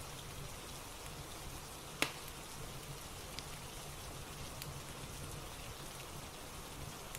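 Steady rain ambience, an even hiss with scattered faint ticks and one sharp click about two seconds in.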